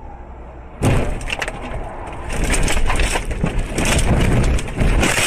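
A car crash heard from inside the car: a sudden loud impact about a second in, then continued crunching, cracking and breaking as the car leaves the road into roadside trees.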